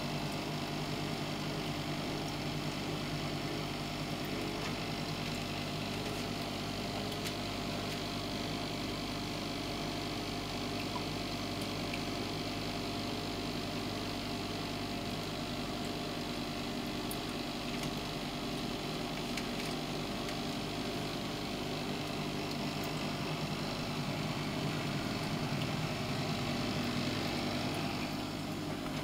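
Steady mechanical hum of a running home-made egg incubator built into a refrigerator cabinet, its circulation fan and motors running, with several steady tones.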